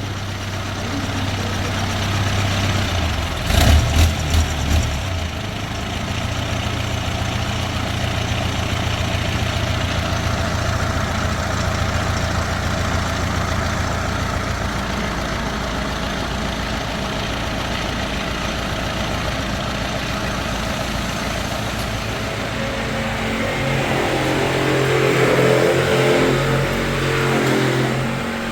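An engine running steadily, with a few knocks about four seconds in; the engine grows louder for a few seconds near the end.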